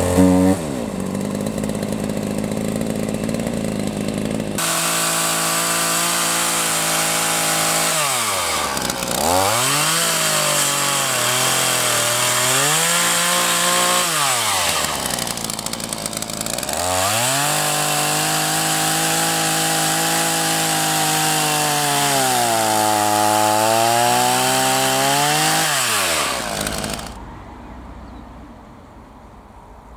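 Chainsaw cutting through logs. The engine note sags deeply several times as the chain bites into the wood and picks back up in between. The saw sound ends about 27 seconds in.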